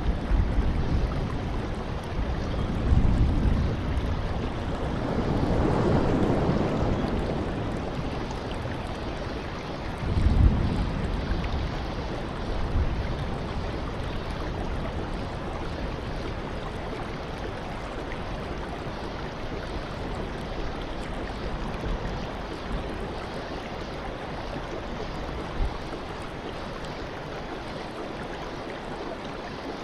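Rough sea surf breaking over rocks: a steady rush of water that swells louder now and then, most of all about six and ten seconds in.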